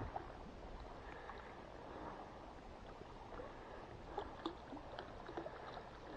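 Faint splashing and lapping of shallow lake water around wading anglers, with a few small ticks and splashes in the second half.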